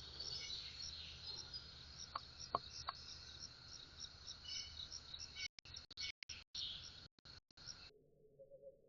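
Faint outdoor ambience of insects chirping, a high-pitched chirp repeating evenly about three times a second, with two short sharp chirps a little over two seconds in. The sound cuts off shortly before the end.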